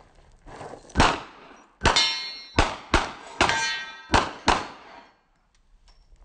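Seven handgun shots in an uneven string, starting about a second in and ending about four and a half seconds in. After two of them a steel target rings on with a metallic tone.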